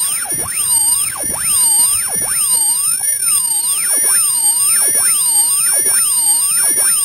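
Loud, high-pitched electronic warble from a homemade ultrasonic dog-bark deterrent, its tweeter mounted in a PVC tube. Several tones sweep up and down together, repeating about once a second.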